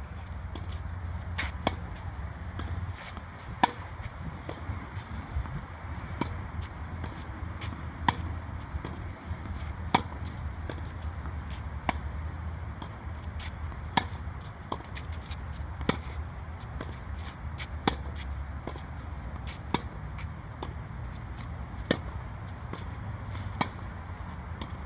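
Tennis rackets striking a tennis ball in a baseline rally, a sharp pock about once every two seconds as the two players trade shots, over a steady low rumble.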